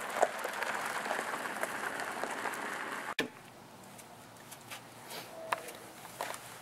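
Steady crunching rush of a car's tyres rolling over a gravel drive, cut off suddenly about three seconds in. A fainter outdoor background with a few light ticks follows.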